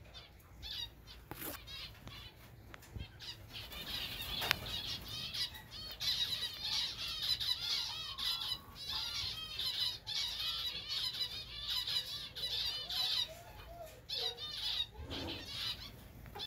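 A flock of zebra finches calling: many rapid, overlapping short chirps, sparse at first and thick from about four seconds in, with a flutter of wings.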